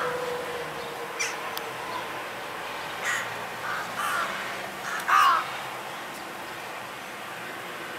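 Crows cawing several times in short harsh calls, the loudest about five seconds in, over steady street background noise.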